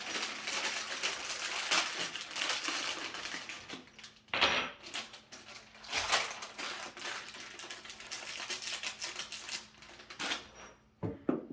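Loose metal lag screws clinking and rattling as they are sorted through by hand, a dense run of small clicks with a louder clatter about four and a half seconds in, dying down near the end.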